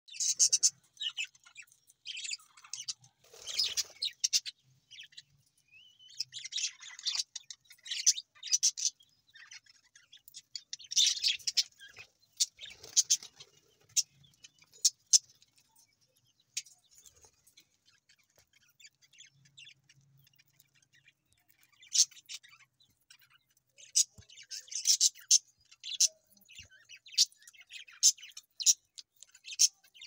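A flock of budgerigars chirping and chattering in short, high, irregular bursts, with a quieter stretch about halfway through.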